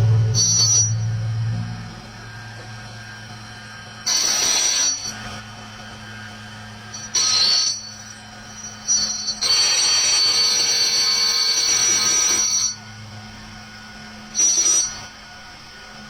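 Lathe cutting a cylinder sleeve: the cutting tool screeches in four bursts of high ringing squeal, the longest about three seconds, over the machine's steady hum.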